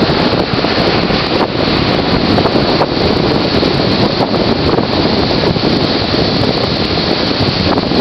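Strong wind from the approaching hurricane buffeting the microphone in a loud, steady rush, with surf breaking underneath.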